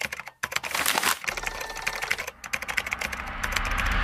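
A rapid, irregular run of sharp clicks, like typing, broken off briefly twice. It grows a little louder toward the end.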